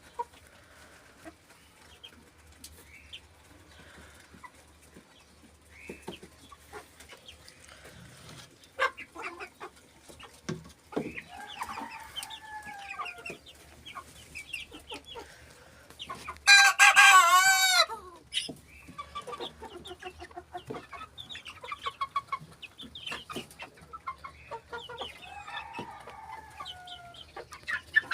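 Young rooster crowing once, loudly, for about a second and a half, a little past halfway through. Scattered short clucks and soft calls come before and after it.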